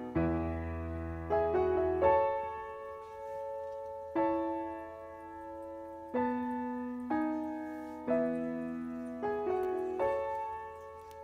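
Slow background piano music: soft chords struck every second or two, each ringing out and fading before the next.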